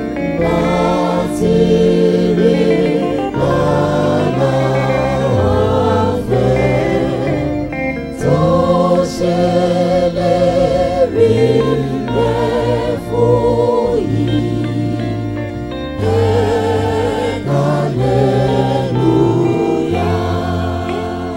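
A choir singing a Yoruba Celestial Church hymn over instrumental accompaniment, the voices holding long notes with a wavering vibrato.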